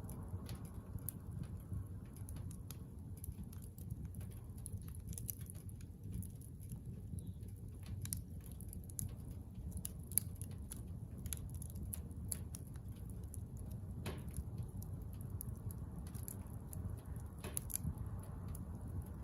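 Bonfire of scrap building lumber crackling: irregular pops and snaps, a few louder ones, over a low steady rumble.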